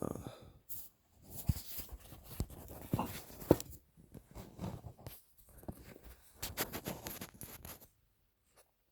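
Irregular clicks, taps and rustling of small objects and materials being handled on a workbench, with a few sharper knocks.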